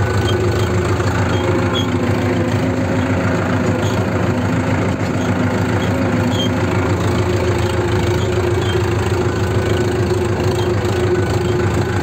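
HMT 5911 tractor's diesel engine running steadily while pulling a tillage implement across a field.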